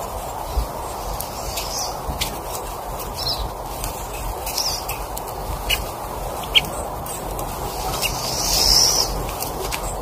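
Small songbirds chirping at a seed feeder: a few short high chirps, then a longer high call about eight and a half seconds in. Beneath them runs a steady background hiss, with scattered sharp clicks, the loudest about six and a half seconds in.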